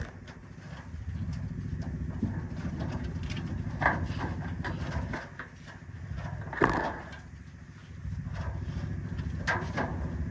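Asian palm civets running and jumping in wire-mesh cages: a few sharp knocks and rattles, the loudest about two-thirds of the way through, over a steady low machine hum.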